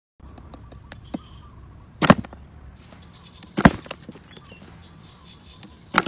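Three loud, sharp bangs, about a second and a half and then two and a half seconds apart, with a few faint clicks between them.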